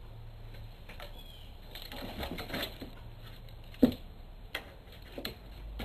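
A cat batting at a dangling string toy: scattered light taps, scuffs and clicks on a wooden floor, with one sharp knock a little before four seconds in.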